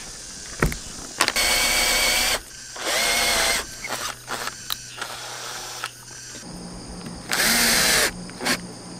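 Cordless drill/driver running in three short bursts, driving screws through a roof fan's plastic mounting flange into the van's roof. The first run starts about a second in and lasts just over a second; the others come about three and seven and a half seconds in.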